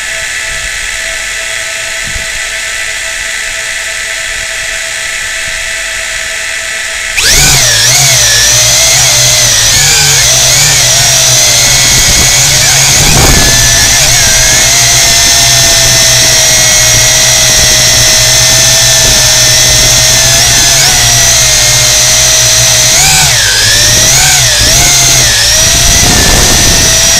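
Quadcopter drone's electric motors and propellers whining steadily at idle, heard from the drone's own camera. About seven seconds in they throttle up sharply for takeoff, and the whine grows louder, its pitch wavering as the drone flies and manoeuvres.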